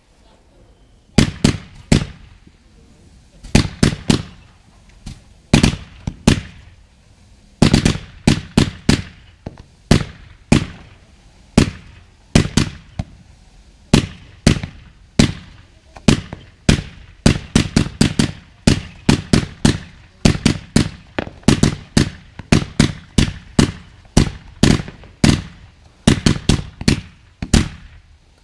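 Fireworks: a string of sharp bangs from aerial shells bursting. For the first several seconds the bangs come a second or two apart. From about eight seconds in they come quickly, often two or three a second.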